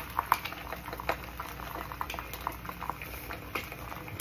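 Two eggs frying in hot olive oil in a small nonstick skillet: a steady sizzle with irregular crackles and pops.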